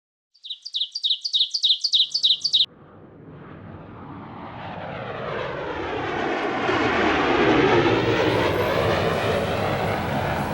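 A small bird chirping rapidly for about two seconds, then the rumble of an approaching vehicle that swells steadily, loudest about eight seconds in.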